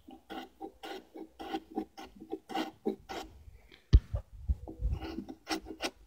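Short, quick scraping strokes of a small hand tool chamfering the edges of a white pine tenon, about three strokes a second, with a few dull knocks around the middle.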